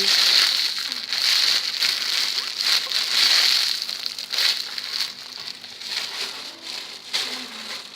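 Close, dense crinkling and crackling as cut-up squishy foam pieces and their wrapping are handled and squeezed. It is loudest for the first few seconds, then grows quieter and more scattered.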